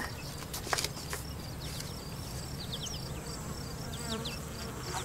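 Summer countryside ambience: insects chirping with a short high chirp repeated in an even rhythm, and a few quick falling chirps around the middle.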